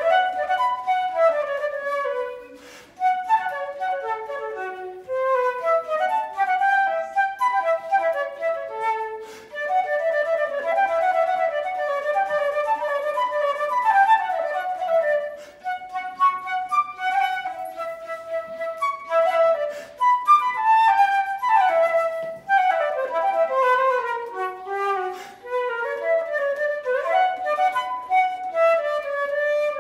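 A transverse flute playing a melody, note by note, in phrases with short pauses between them.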